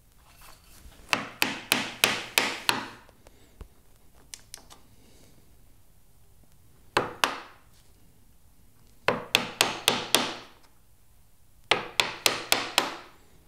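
A mallet striking a chisel to chop out dovetail waste. The knocks come in short bursts of two to six quick blows, about four a second, with pauses between the bursts.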